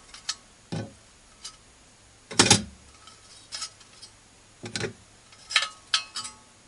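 Folding sheet-metal pocket stove (Sledopyt case burner) being handled as dry-fuel tablets and a lighter are packed into it: a string of irregular light metal clicks and clacks, the loudest about two and a half seconds in.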